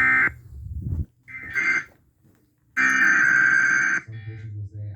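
Emergency Alert System SAME digital data bursts: harsh electronic warbling tones in three separate bursts, a short one at the start, another about 1.3 s in, and a longer one of about a second near 3 s in. This is the coded data that opens or closes an alert broadcast.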